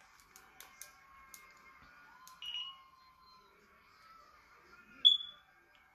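Faint clicks of small plastic glitter jars being handled, with two short high-pitched beeps, one about two and a half seconds in and a louder one about five seconds in.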